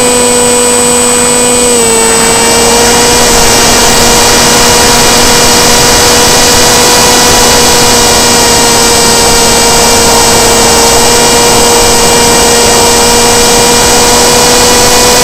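Electric motor and propeller of an S800 Sky Shadow flying-wing RC plane running at steady throttle, a continuous whine heard close up from the onboard camera, with a steady hiss of rushing air. The pitch dips slightly about two seconds in and creeps up near the end.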